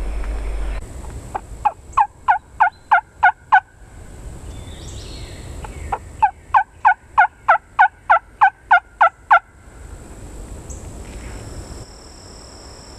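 Two runs of hen-turkey yelps blown on a hunter's turkey call: about nine sharp notes, a pause, then about twelve more, at roughly four a second.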